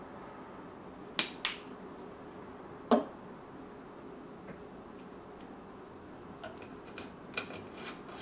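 Small objects handled on a wooden tabletop: two sharp clicks in quick succession, then a single knock about three seconds in as a small glass bottle is set down on the table, followed near the end by a few faint clicks and taps.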